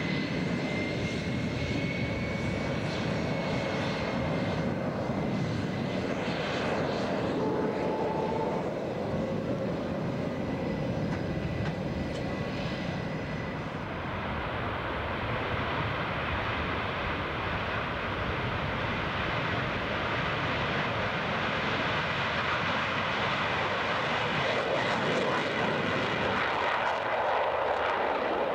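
Jet engines of an F/A-18F Super Hornet taxiing: a steady whine over a broad rush. After a cut about halfway through comes the jet noise of an F/A-18 taking off and climbing away, with the rush growing louder toward the end.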